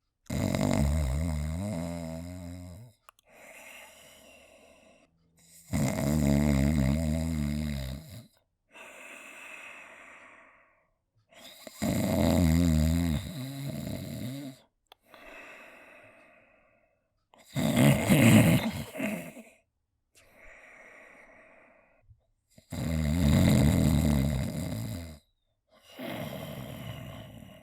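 A person snoring: six loud, low snores about every five to six seconds, each two to three seconds long, with a quieter breath between them.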